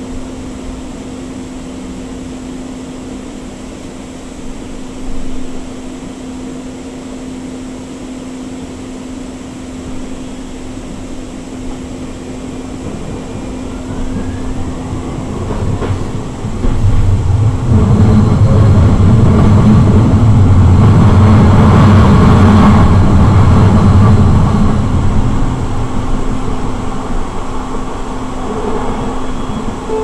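Inside a Siemens S200 light rail car in motion: steady running noise with a constant hum. About halfway through, a much louder rumble builds as another light rail train passes close alongside, then eases off.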